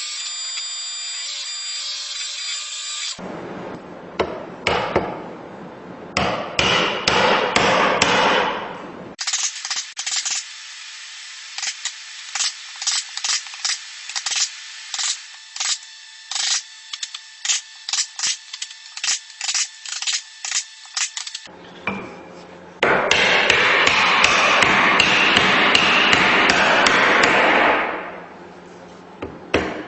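Hand tools working pine: after a brief steady hum, a stretch of scraping strokes, then a long run of quick sharp taps, a couple a second, then about five seconds of steady loud grinding noise.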